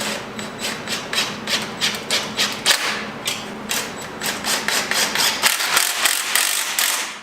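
Irregular metallic clicks and scrapes, two or three a second, from a floor jack and steel turbo exhaust parts being worked into place under a heavy turbo manifold.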